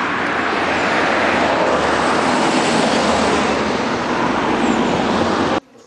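Loud, steady road traffic noise from vehicles on the street, cutting off suddenly near the end.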